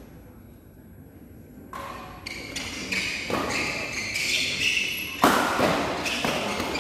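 Badminton rally: rackets hitting the shuttlecock and the players' feet on the court, beginning about two seconds in, with one loud hit about five seconds in.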